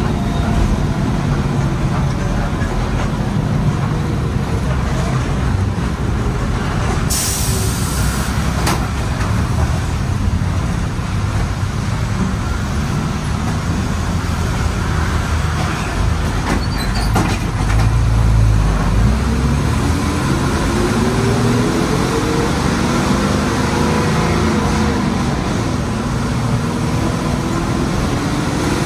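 Loud engine of a 40-year-old diesel city bus running under way, with road and wind noise through the open window. About seven seconds in comes a short hiss of released air, and in the second half the engine note climbs in pitch as the bus speeds up.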